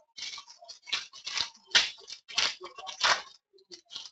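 A trading card pack being opened by hand: a string of short crinkling, tearing rustles of the wrapper as the cards are pulled out.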